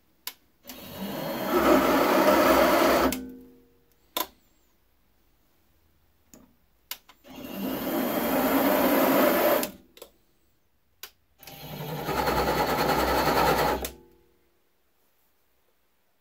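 Harbor Freight mini lathe's motor and change-gear train running in three short runs of about two and a half seconds each, each spinning up and stopping, with sharp switch clicks between them. These are the lathe's forward and reverse runs with the lead screw left engaged, as in thread-cutting passes.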